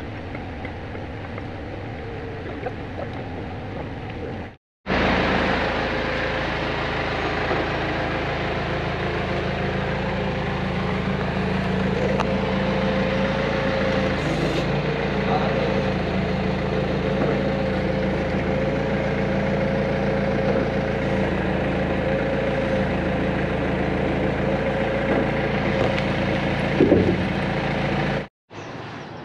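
Engine running steadily, quieter at first. After a brief break about four and a half seconds in, it comes back louder and holds steady.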